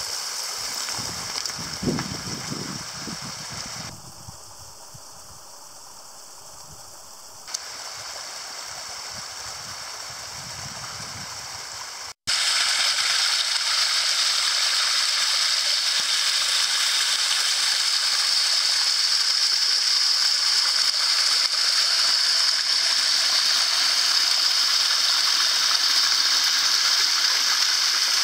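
Spring water trickling and splashing over rocks, a steady hiss, with a few low bumps in the first seconds. The sound drops out briefly about twelve seconds in and returns louder and steady.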